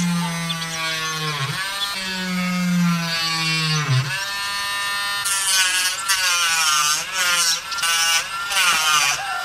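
Small cordless rotary tool drilling into a plastic marker barrel, its motor whine sagging in pitch twice as the bit bites. From about five seconds in, a cutting disc cuts through the plastic in a run of short, harsh passes, stopping suddenly at the end.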